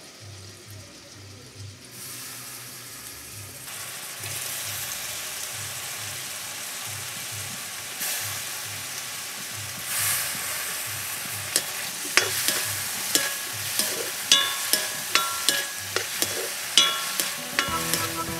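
Sliced mushrooms sizzling in hot oil in a metal kadai. The sizzle grows louder about two seconds in and again around ten seconds. From about twelve seconds a ladle stirs them, clinking and scraping against the pan about twice a second.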